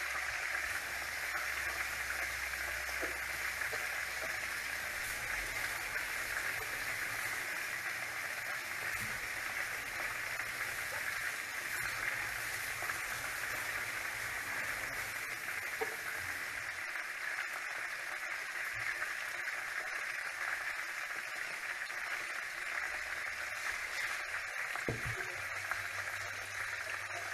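Chicken frying in hot oil: a steady sizzling hiss with faint crackles.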